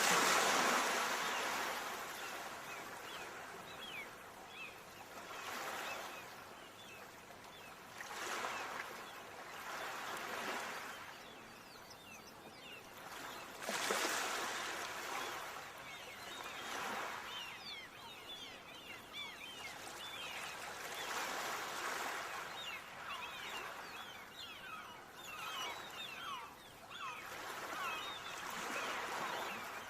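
Ocean waves washing onto shore, a swell of surf about every three seconds, the biggest at the very start and about 14 s in. Short high chirps run over the surf through the second half.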